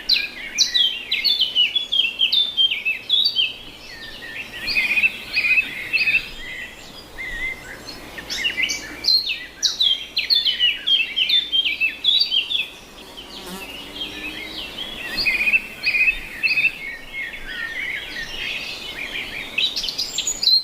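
Many small birds chirping together in a dense, continuous chatter of short high notes, thinning out now and then.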